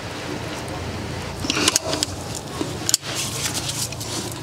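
Hand tools at work on the bolts of a BMW clutch pressure plate: scattered metal clicks and clinks, with two sharper knocks about a second and a half apart, over a steady low hum.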